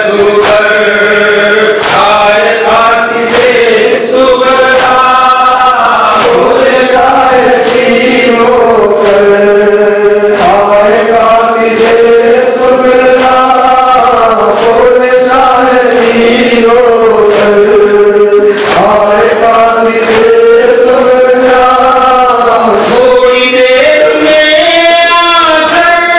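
Men's voices chanting a Shia Muharram mourning recitation, amplified through microphones, in long held lines that slowly rise and fall in pitch without a pause.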